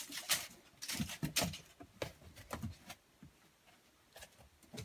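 West Siberian Laika puppies playing, scuffling about with scattered small clicks and rustles and a few brief low puppy noises in the first second and a half.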